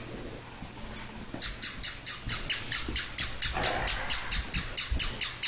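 Small battery-operated toy puppy yapping: a fast, evenly spaced train of short, high-pitched electronic yips, about five a second, starting a little over a second in.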